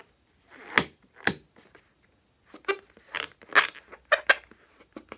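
Short, crisp clicks and snips from slime-making materials being handled, about a dozen in irregular clusters.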